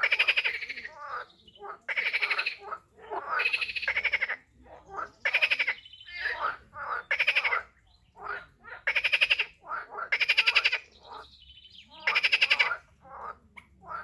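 Frogs calling: loud, rapidly pulsed croaks, each under a second long, repeating about every one and a half to two seconds, with shorter, quieter calls in between.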